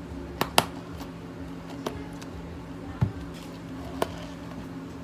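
Clear plastic dome lids being pressed and snapped onto plastic iced-drink cups: a handful of short, sharp plastic clicks, two close together about half a second in and more spaced out after. A steady low hum runs underneath.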